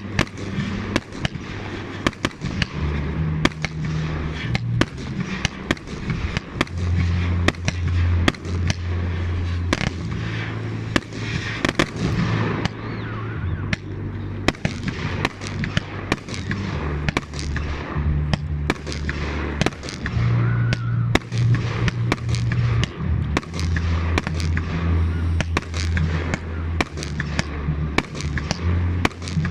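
Fireworks display: many shell bursts and bangs in quick, irregular succession, some overlapping, over a low drone.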